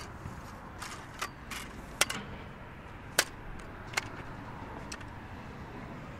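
A camera tripod being set up and adjusted: several short, sharp clicks and knocks as its legs and head are handled and locked, the loudest about two and three seconds in, over steady background noise.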